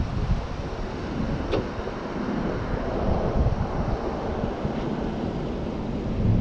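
Wind buffeting the microphone as a gusty low rumble, with road traffic going by.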